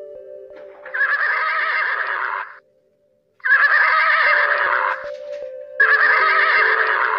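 Horse neighing: three long calls of about a second and a half each, alike in shape, coming roughly every two and a half seconds.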